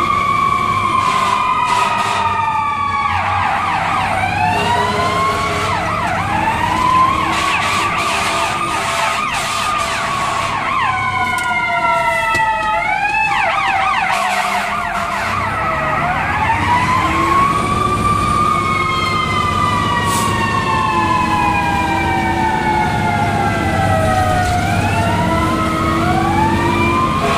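Fire engine siren wailing, heard from inside the cab, several siren tones rising and falling in slow overlapping sweeps, with a run of quicker sweeps a little under halfway through.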